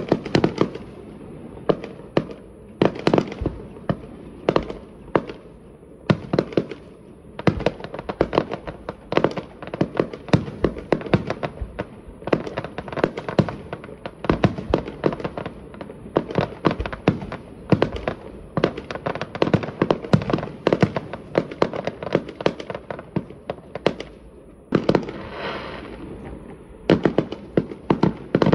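Fireworks display: a rapid, continuous barrage of aerial shell bursts, several bangs a second, with a spell of crackling about 25 seconds in.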